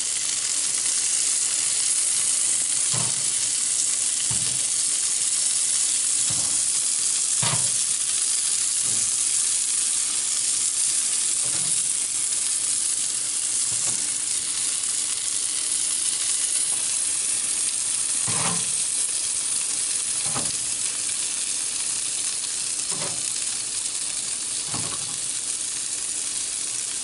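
Marinated wild turkey breast pieces sizzling steadily on a charcoal grill's wire grate. A dozen or so light knocks come from the metal tongs as the pieces are turned.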